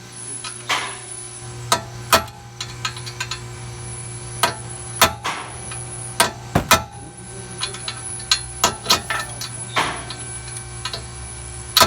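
Hammer striking a steel punch to drive a stuck bolt out of a ball joint that has never been apart, in about a dozen sharp metal-on-metal blows at uneven intervals, some of them ringing briefly.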